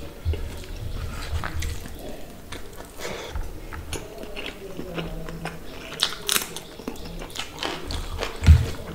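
Eating sounds: chewing and mouth smacks on a mouthful of rice and fish curry, with wet squishing as fingers mix the rice and curry. There are irregular clicks throughout and a louder low thud near the end.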